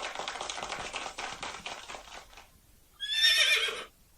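A horse whinnying once, a short wavering neigh just under a second long about three seconds in. It is preceded by a fading clattering noise in the first two seconds.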